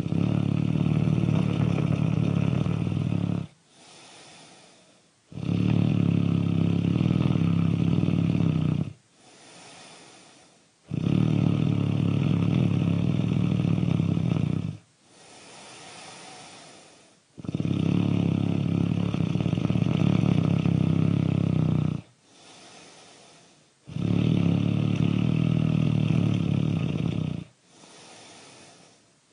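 Snoring, really loud, in a slow even rhythm: five long snores of about three to four seconds each, each followed by a much quieter breath before the next.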